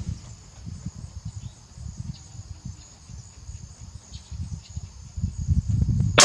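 Steady high-pitched insect chorus with low, uneven wind rumble on the microphone. A loud rifle shot goes off at the very end.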